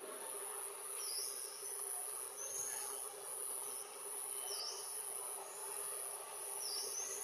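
Steady high-pitched insect drone, unbroken throughout, with about six short rising chirps scattered over it.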